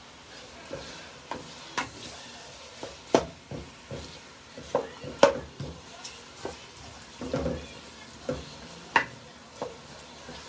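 Sliced onions frying in a pan with a faint steady sizzle, while a wooden spoon stirs them, knocking and scraping against the pan at irregular moments, the loudest knocks about three and five seconds in.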